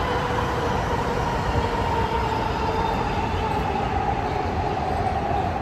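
Train running, a steady rumble with a faint whine that slowly falls in pitch.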